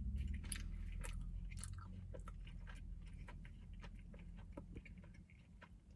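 Close-up chewing of a mouthful of bread, a scatter of soft wet clicks and smacks. A low steady hum sits underneath and fades near the end.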